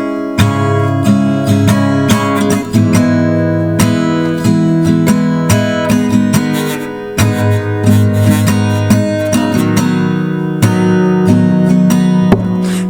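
Instrumental song intro led by a strummed acoustic guitar, playing steadily before the vocals come in.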